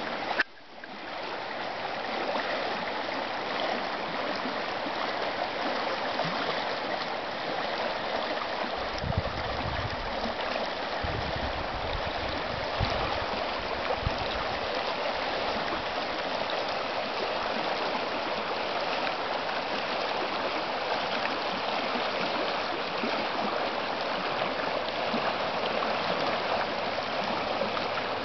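Cottonwood Wash, a usually dry desert wash, running with water: a steady rushing and gurgling of flowing water, with a brief click and dip in level right at the start.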